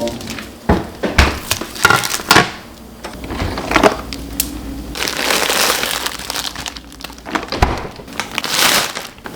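Plastic bags and packaging crinkling and rustling as things are handled, with irregular sharp knocks and clatters of containers being moved.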